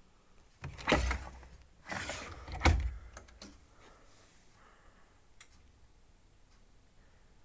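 A door or latch being worked: two scraping movements about a second apart, each ending in a sharp click. A few faint clicks follow.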